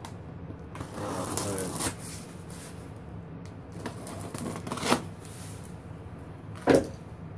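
A box cutter slicing the packing tape on a cardboard shipping box, with scraping and rustling of the cardboard. Two sharp knocks come in the second half, the later one the loudest.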